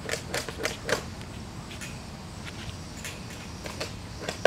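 Chickens' beaks tapping on a plastic water tub as they drink: about four quick taps in the first second, then scattered fainter ones. One louder sharp click near the end.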